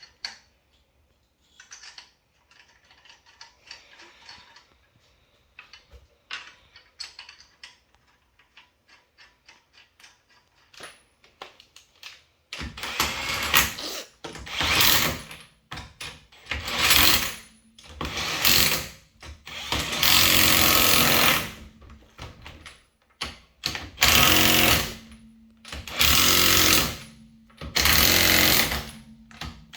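Impact wrench hammering in a string of short bursts, one after another, as the wheel's lug nuts are run down onto the hub. Before the first burst, faint clicks and rattles as the lug nuts are started by hand.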